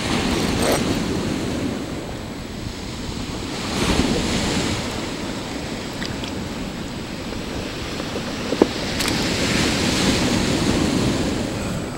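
Ocean surf washing in slow surges, swelling about four seconds in and again near the end, with wind buffeting the microphone. A few small clicks and knocks from handling.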